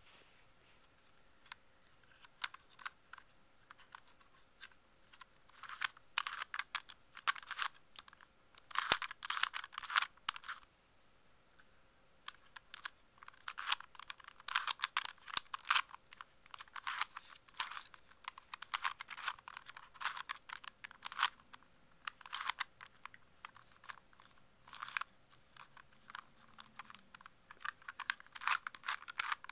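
Plastic Dino Cube puzzle being turned by hand: quick runs of clicking and clacking as its corner pieces twist, in bursts with short pauses.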